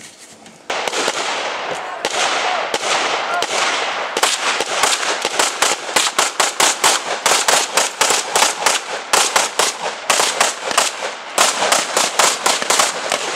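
Rapid gunfire: a dense burst of overlapping shots, then shot after shot at about four or five a second. There is a short lull about ten seconds in.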